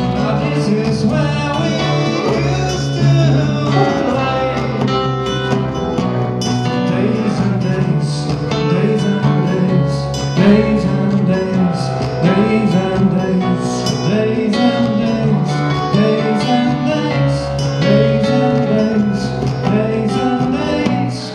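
Live band music: a strummed acoustic guitar and an electric guitar, with a man singing.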